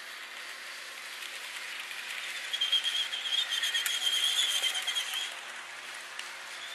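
HO-scale model freight cars rolling along the track with a steady running hiss. A high-pitched squeal joins in about two and a half seconds in and fades out about five seconds in.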